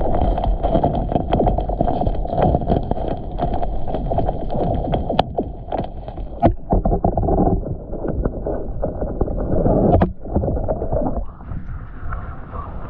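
Strong wind buffeting the microphone, a dense rumbling rush with frequent sharp clicks and flaps. It drops out abruptly about ten seconds in, then comes back weaker.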